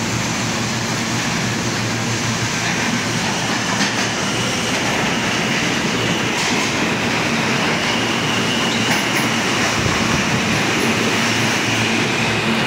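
An R160A subway train pulling into an underground station, with steady wheel-on-rail rumble and clatter. A steady high whine joins about halfway through.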